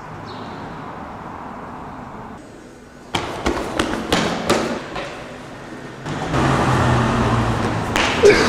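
Camcorder handling noise: a quick run of knocks and clicks about three seconds in, then loud rubbing and scraping against the microphone with a low hum under it.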